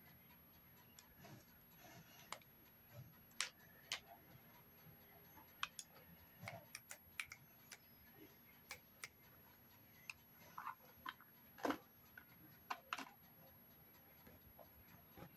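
Scattered faint clicks and taps of makeup pens and containers being handled and set down, at irregular intervals.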